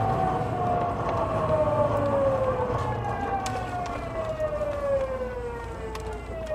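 Tokyu 9000 series train's VVVF inverter and traction motors whining, the tone gliding steadily down in pitch as the train slows, over a steady low rumble of wheels on rail. The glide starts again from a higher pitch about three seconds in.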